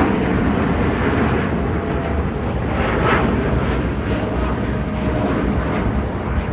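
Jet airliner engines, a loud steady rush of noise with a faint whine running through it.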